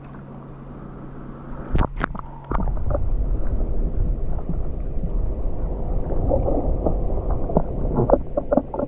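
A faint steady low hum, then from about two and a half seconds in, loud churning and gurgling water with many scattered knocks, as of objects being moved through water.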